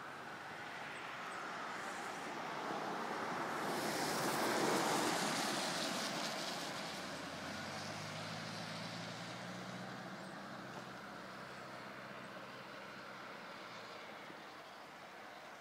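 A vehicle passing on a wet road: tyre hiss swells to a peak about five seconds in and fades away, followed by a low engine hum.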